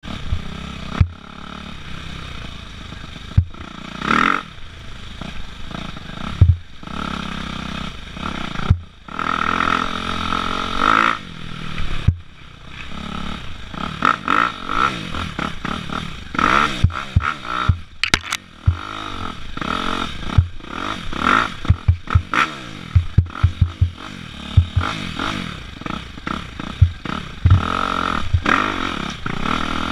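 Dirt bike engine revving up and down again and again while the bike is ridden over rough dirt, with frequent sharp knocks and clatter from the bike jolting over the ground.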